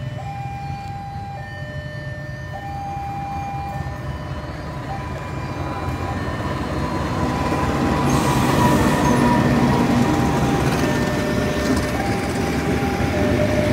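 Passenger train hauled by a CC 201 diesel-electric locomotive approaching and passing, its engine rumble and rolling wheel noise growing louder until the coaches go by past the halfway point. A two-tone warning signal stepping between a higher and a lower pitch sounds in the first few seconds and again near the end.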